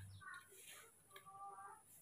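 Faint, high squeaky calls from a baby macaque: a short one at the start, then a longer one held for about half a second, about a second in.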